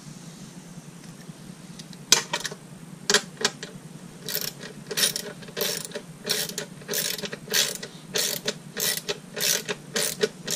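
Ratchet wrench clicking in repeated back-and-forth strokes as a nut is tightened down. It starts about two seconds in and settles into a steady rhythm of one or two strokes a second.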